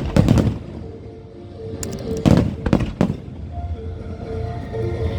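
Fireworks bursting: a cluster of sharp bangs at the start and three more bangs a little before the middle, with music playing underneath.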